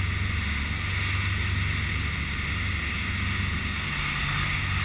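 A 54-foot sportfishing boat running hard through rough seas: a steady low engine drone under wind and rushing, spraying water. Near the end a slightly higher hum joins the drone.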